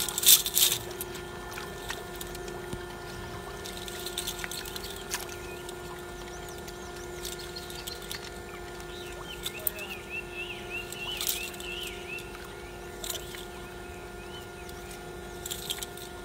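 A steady hum with overtones, and over it a few short noise bursts, the loudest right at the start and near the end. Bird chirps come around ten to twelve seconds in.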